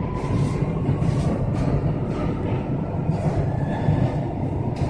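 Chennai Metro train running, heard from inside the carriage as it moves out of a station: a steady rumble with a faint motor whine and a few light clicks.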